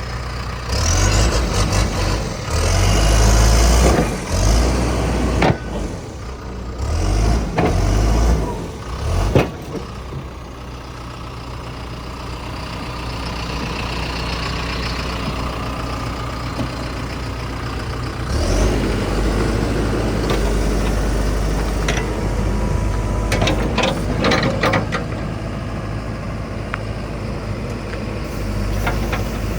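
Diesel engine of a John Deere 310SJ loader backhoe running, swelling and easing in loudness, with several sharp metallic clanks.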